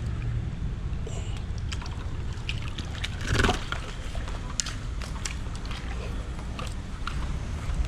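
A hooked barramundi splashing as it is brought in, with one louder splash about three seconds in. Scattered small clicks and a low steady rumble run under it.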